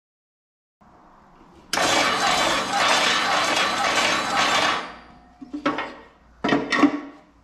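Mud Mixer concrete mixer's electric motor and auger switched on with a newly fitted replacement switch: it starts suddenly, runs steadily for about three seconds, then winds down, followed by two short bursts of running.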